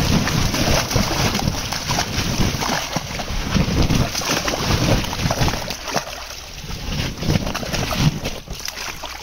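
Large trout sliding out of a stocking truck's release chute with a rush of water and thrashing at the surface, making a loud, continuous splashing. It eases off a little about six seconds in.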